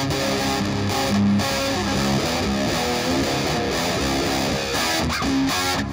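Music with a distorted electric guitar playing a quick run of changing notes.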